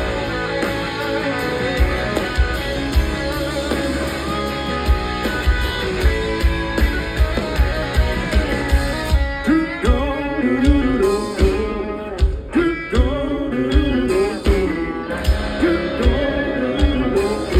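Rock band instrumental break: guitars over drums with a steady kick-drum beat. From about halfway a lead guitar line with bending, sliding notes comes to the front.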